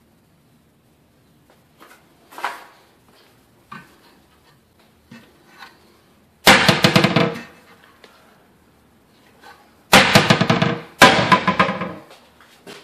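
Wooden kitchen cabinet doors being handled: a few light knocks, then three loud rattling bangs, about six and a half, ten and eleven seconds in.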